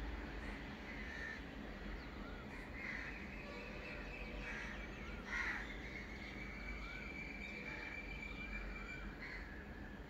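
Dawn birdsong: many short repeated chirps, with a crow cawing and the loudest call coming about halfway through, over a low steady rumble.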